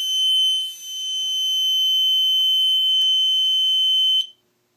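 Fire alarm system's electronic tone sounding steadily at one high pitch, then cutting off abruptly about four seconds in.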